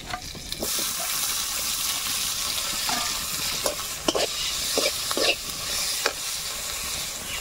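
Chopped tomato going into hot oil with fried onion, green chilli and panch phoron in a karahi, sizzling steadily from about half a second in. A handful of short scrapes as the pan is stirred.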